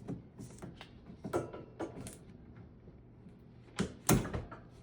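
Irregular clicks and knocks of hoses and fittings being handled and pushed into place on a washing machine's drain pump, with the loudest knock about four seconds in.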